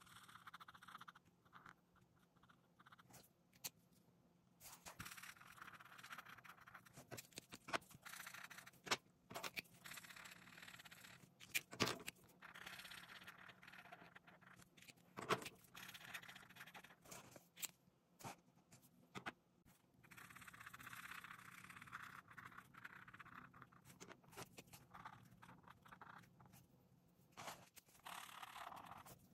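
Faint scratching of felt-tip and brush-tip markers stroking back and forth over colouring-book paper, coming in stretches of a few seconds at a time, with a few sharp clicks in between.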